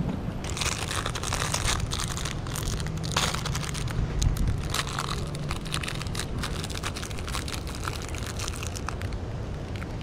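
Plastic wrapper crinkling and crackling as it is handled right at the microphone, starting about half a second in, over a low wind rumble.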